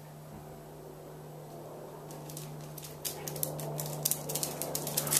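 Dogs playing quietly: a run of clicks and rustles starts about two seconds in and grows louder and denser, over a faint steady hum.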